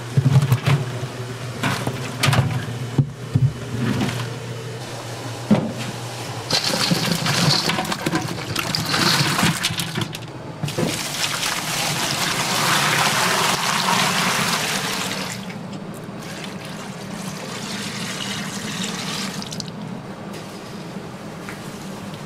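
Handfuls of meat strips dropped into an empty aluminium stock pot, with scattered soft knocks for the first few seconds. Then a stream of water is poured into the pot over the meat and vegetables, a steady splashing rush that is loudest in the middle and eases off after about fifteen seconds.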